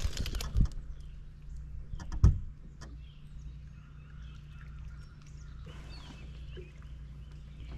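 A bass being swung aboard a bass boat: splashing and clatter at first, then a single sharp thump about two seconds in as the fish and tackle land. A low steady hum runs underneath, with faint chirps later on.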